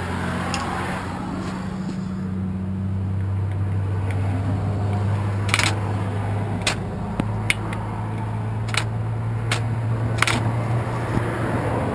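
Metal tool clicking and scraping inside a mortise lock, working the cam through the hole left by the pulled cylinder, with about six sharp clicks in the second half. A steady low hum runs underneath.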